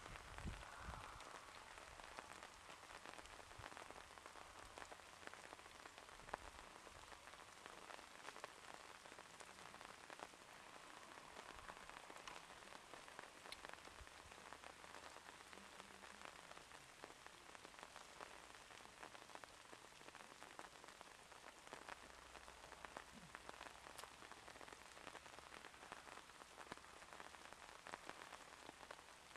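Near silence: a faint, even hiss with scattered light crackles. The departing steam locomotive's exhaust beat is not clearly heard.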